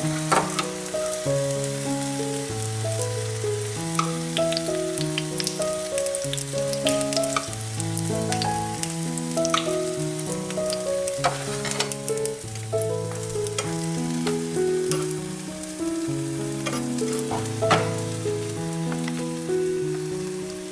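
Cooking oil sizzling and crackling in a hot cast-iron mini-pancake pan as it is spooned into the cups, under background music of held notes over a stepping bass line.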